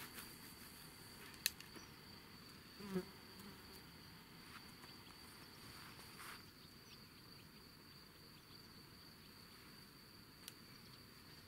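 Faint, steady, high-pitched insect trill, with a few faint clicks and knocks from rod handling.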